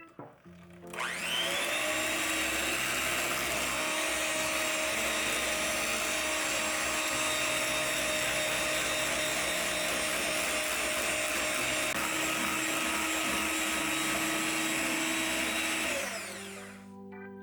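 Electric hand mixer spinning up about a second in, running steadily with a high whine, and winding down near the end. Soft background music plays underneath.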